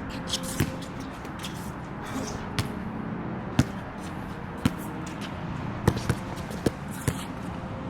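Basketball bouncing on a wet court during one-on-one play: a string of sharp, irregularly spaced bounces over a steady background hiss.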